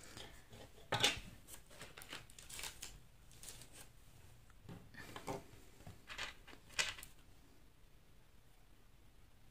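Scissors snipping the black tatting thread: several short, crisp snips with some handling rustle during the first seven seconds or so, then stillness.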